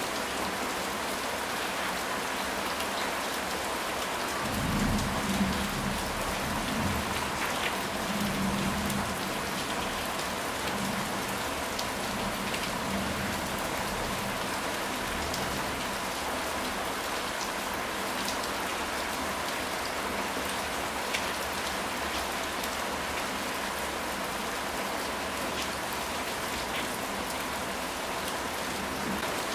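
Steady rain falling, with scattered faint drop ticks. About five seconds in, a low rumble of thunder swells and dies away over several seconds.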